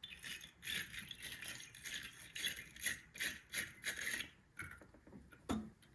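Battery-terminal cleaning brush scraping on a car battery cable clamp in rapid repeated strokes, a dry metallic scratching, with a knock near the end.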